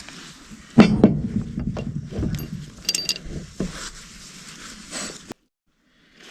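Metal parts clinking and knocking as they are handled, with two louder knocks about a second in and a short metallic ring around three seconds; the sound then cuts off abruptly.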